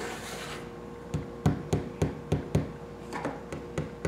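Hand brushing, then fingers tapping on a 12-inch woofer's polypropylene cone: a quick series of light knocks, about three a second, starting about a second in.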